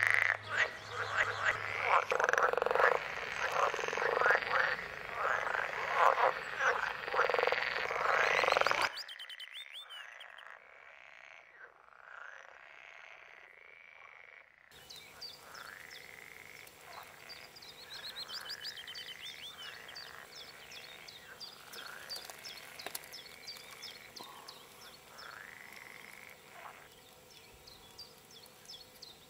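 A dense chorus of frogs croaking, which stops abruptly about nine seconds in. A much quieter pond background follows, with short repeated calls every second or two and, from about halfway, rapid high chirping.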